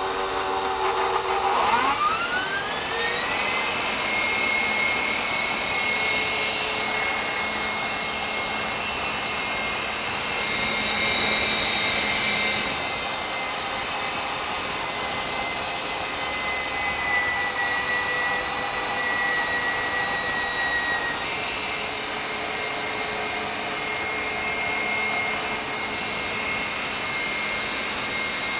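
KitchenAid stand mixer running at its top speed, 10, driving the pasta extruder attachment. The motor whine climbs in pitch over the first couple of seconds as it spins up, then holds a steady high whine over a loud hiss, sagging slightly in pitch around twenty seconds in.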